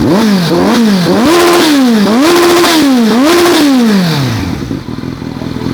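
Kawasaki Z900 inline-four running through a newly fitted aftermarket exhaust, revved about five times in quick succession, the later revs held briefly at the top, then falling back to idle near the end.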